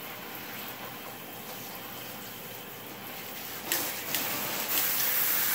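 Water spraying from a pistol-grip garden hose nozzle into a bathtub, a steady hiss. About three and a half seconds in come a couple of clicks, and the spray turns louder and harsher, as the nozzle is set to its higher-pressure mode.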